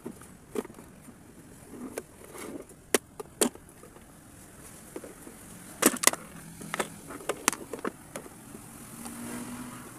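Sharp plastic clicks and knocks as the white plastic housing of a Panasonic MX-101SG1 blender base is pried apart and handled, with a quick run of snaps past the middle.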